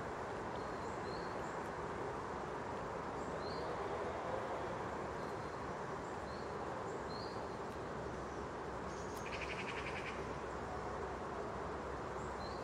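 Steady outdoor background noise, with small birds giving short high chirps every few seconds and a brief buzzing trill about nine seconds in.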